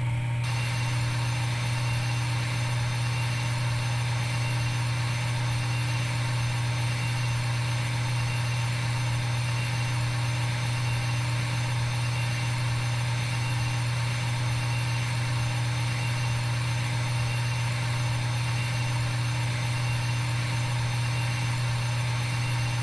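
Steady low machine hum of a CNC milling simulator's spindle-and-cutting sound effect, running evenly at one pitch while a virtual end mill cuts a square pocket in a block.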